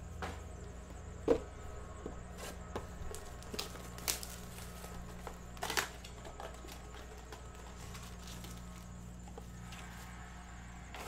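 Trading-card packs and cards being handled on a table: a scatter of light clicks and taps in the first six seconds, the loudest about a second in, then mostly a steady low hum.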